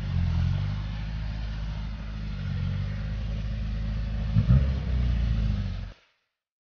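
Engine of a small off-road 4x4 revving as it drives through deep mud, the pitch rising and falling with the throttle. There is a short louder moment about four and a half seconds in, and the sound cuts off abruptly about six seconds in.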